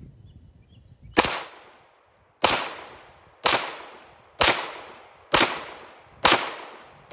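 Six 9mm pistol shots from a short-barrelled CZ Scorpion, fired one at a time about a second apart, each trailing off; a seventh shot comes right at the end.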